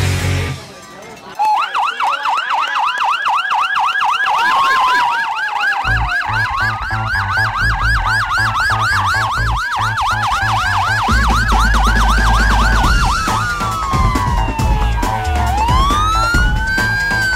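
Police car sirens sounding, starting about a second in: a rapid yelp cycling quickly up and down, with a slower wail rising and falling over it.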